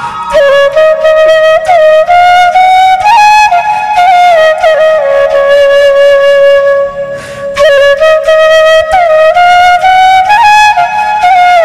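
Background music: a solo flute playing a flowing, ornamented melody with sliding notes, breaking off briefly a little past halfway.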